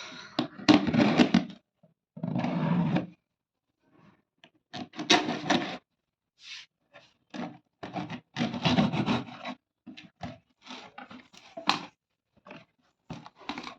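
Cardboard packaging being handled and opened, with rubbing and scraping in irregular bursts about a second long.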